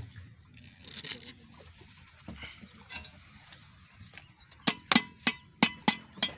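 Light handling noises, then from about four and a half seconds in, a quick run of sharp ringing metallic strikes, about three a second.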